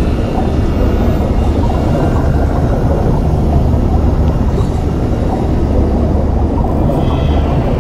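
A steady, deep underwater rumble: the continuous underwater ambience effect of an animated soundtrack.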